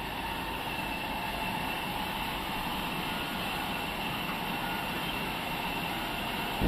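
Sawmill machinery running steadily: an even mechanical noise with a constant whine. A short loud knock comes at the very end.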